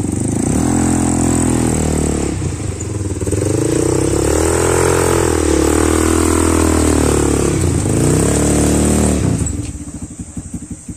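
Sport quad bike (ATV) engine revving, its pitch rising and falling in waves, then easing off to a lower, pulsing run near the end.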